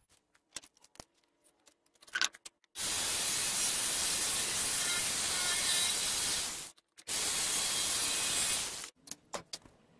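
Handheld power jigsaw cutting notches in a thin OSB panel: two steady runs of noisy sawing, about four seconds and then about two, with a short break between. A few light clicks and knocks of the tool being handled come before.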